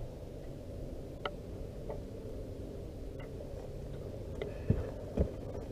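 Scattered light clicks and knocks from handling gear on a fishing boat while a small bass is reeled in and landed, with two louder low thumps near the end, over a steady low background rumble.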